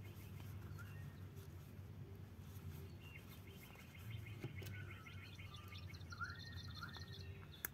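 Small birds chirping faintly in the background, with runs of rapid trilling and short chirps that slide up or down, over a low steady hum.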